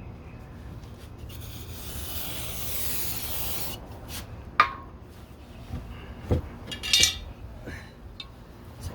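Greasy metal door hardware being rubbed and wiped by hand: a steady rubbing hiss for about two seconds, then a few light metal clicks as the parts are handled.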